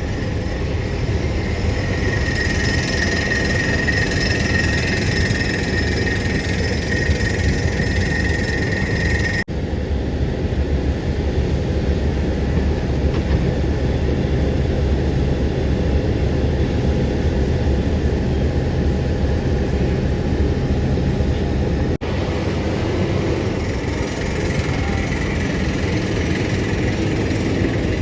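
Heavy diesel engine of a Tata Hitachi excavator running steadily under load, with a high whine over it for the first few seconds. The sound breaks off abruptly and resumes twice.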